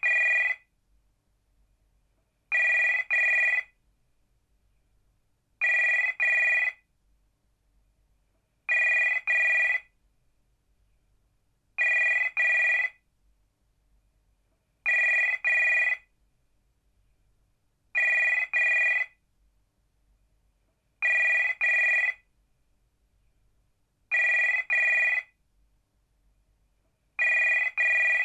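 Viscount telephone ringing in a repeating double-ring pattern: two short rings in quick succession, then a pause, about every three seconds, ten times over.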